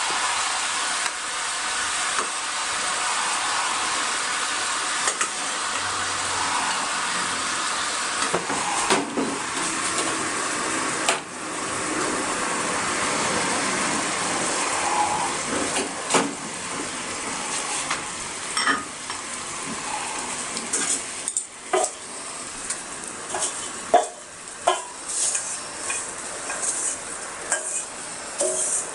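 Food sizzling steadily in a frying pan while a utensil stirs and scrapes against the pan. After about twenty seconds the sizzle eases and quick clicks and knocks of the utensil on the pan take over.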